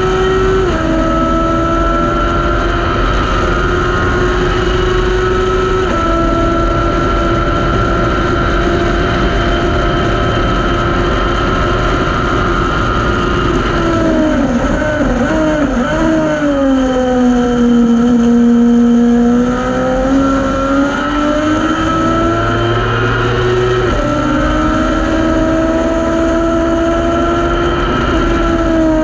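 Thunder Roadster TRX race car engine at racing speed, heard from the cockpit, over wind noise. The note drops sharply about a second in at an upshift, falls low and wavers through braking into a slow corner around the middle, then climbs again under acceleration, with another sharp drop near the end.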